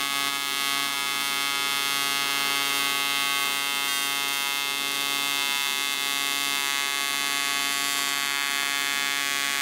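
Electric arc welder buzzing steadily as it runs a weld bead along a metal seam.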